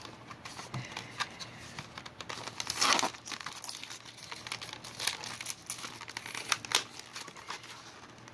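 Plastic packaging crinkling and crackling as it is handled, with scattered sharp clicks and a louder rustle about three seconds in.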